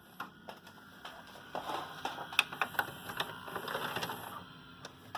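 Tape mechanism of a Magnavox MWD2205 DVD/VCR combo whirring and clicking irregularly as it stops and ejects a VHS tape.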